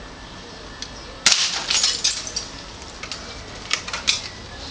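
Glass breaking with one sudden crash, followed by about a second of shards clattering and a few more clinks near the end.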